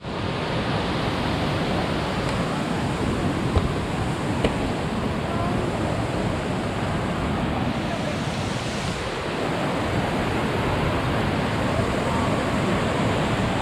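Waterfall: a steady, unbroken rush of water pouring over the cascades.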